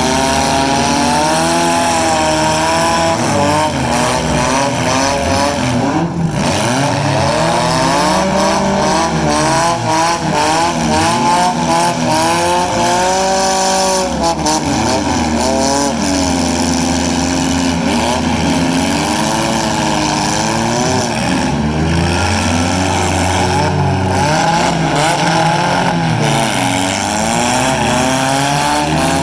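Several demolition-derby cars' four-cylinder engines revving hard at once, their pitches rising and falling against each other as the drivers accelerate and back off.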